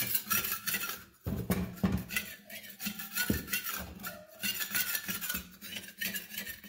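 Metal clanking and clattering of steel parts, many irregular knocks close together over a steady low hum, cutting off near the end.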